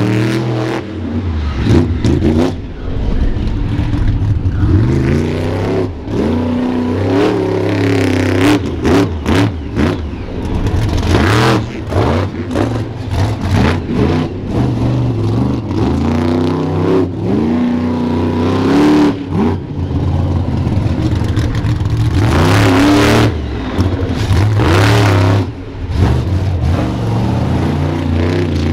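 Monster truck engine revving hard, its pitch climbing and falling over and over, with several loud bangs and crashes from the truck's run.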